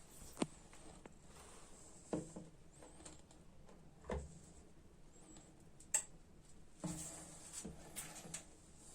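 A handful of short, light knocks and clicks, a second or two apart, over quiet room tone: tools and pipe being handled.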